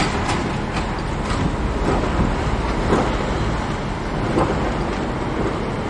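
Cab noise of an articulated truck rolling slowly over a potholed road: a steady engine and road rumble with scattered light knocks and rattles.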